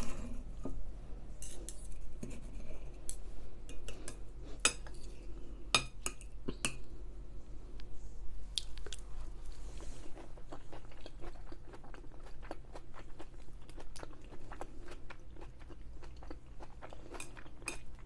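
Close-miked eating: a metal fork clicking and scraping against a plate, with the soft wet sounds of chewing. The clicks come thickest in the first few seconds and again near the end, while the chewing carries on quietly in between.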